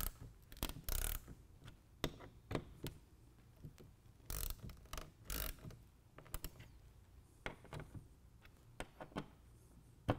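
Hand ratchet with a T50 Torx bit loosening the door-side hinge bolts on a Jeep Wrangler half door. The pawl clicks in an uneven series, with a few short runs of ratcheting.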